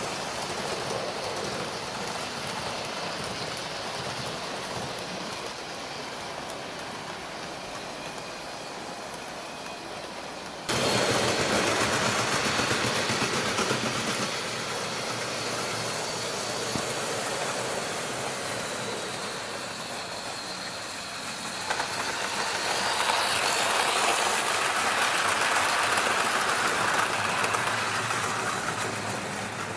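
Model trains running on a layout: a steady electric motor hum with a faint high whine, and wheels on the track. The sound jumps abruptly louder about eleven seconds in and changes again about twenty-two seconds in.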